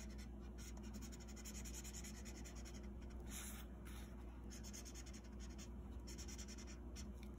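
A marker scribbling quickly back and forth on paper while colouring in a cutout: a faint, fast, even run of scratchy strokes.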